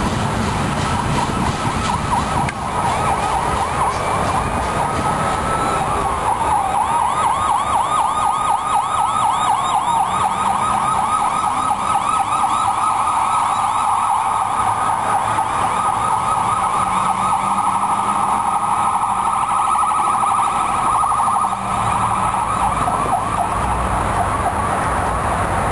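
Police car siren in a fast yelp, its pitch sweeping rapidly up and down without a break, growing louder about six seconds in.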